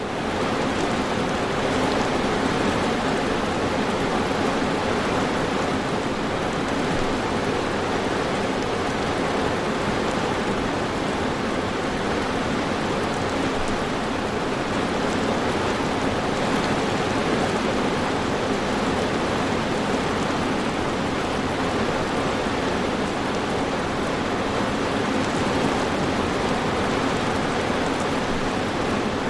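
Steady, dense rainfall with an even hiss and patter and no thunderclaps.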